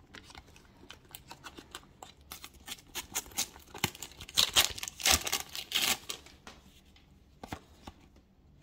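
Panini sticker packet being torn open, with the wrapper crinkling and the stickers handled: a quick run of tearing and rustling, densest and loudest in the middle, thinning to a few light clicks near the end.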